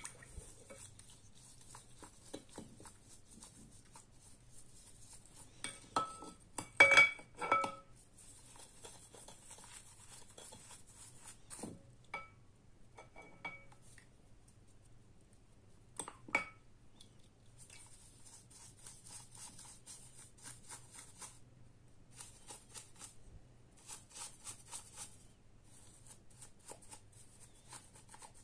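A bristle brush scrubbing an old brass faucet in soapy water, a soft rasping hiss that comes and goes in spells. Several hard clinks against the glass bowl ring out, the loudest a cluster about six to seven and a half seconds in.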